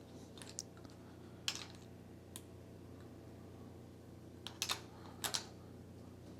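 Faint, scattered metallic clicks and light taps, about six, some in quick pairs near the end, from a pushrod being worked up and down in its rocker arm and hydraulic lifter on a 2.8L V6 to feel for valve lash.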